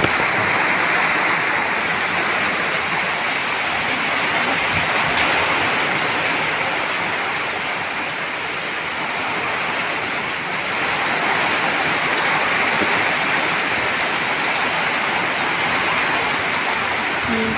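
Heavy wind-driven typhoon rain pouring down on foliage and floodwater: a loud, steady rush that eases slightly about eight seconds in, then picks up again.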